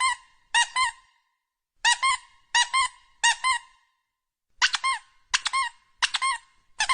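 Rubber squeaky dog toy being squeezed over and over, giving quick pairs of high squeaks about 0.7 s apart, in runs of three with short pauses between.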